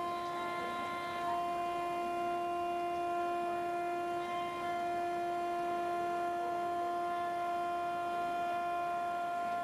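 A steady humming drone held at one fixed pitch, with its upper overtones shifting a couple of times.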